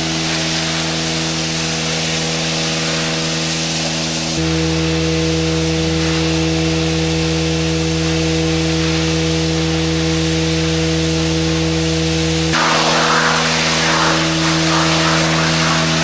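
Water jetting from a washdown hose and splashing over the concrete floor of a milking parlour, over a steady motor hum. The splashing grows rougher and a little louder about twelve seconds in.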